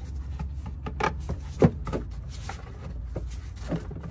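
Scattered plastic clicks and knocks of engine-bay parts being handled and pushed back into place, the loudest about one and a half seconds in, over a steady low rumble.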